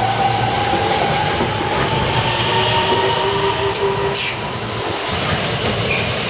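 JR West 225 series electric train accelerating away from the platform: the motors' whine rises steadily in pitch over the rumble of wheels on rails. Two sharp clicks come about four seconds in.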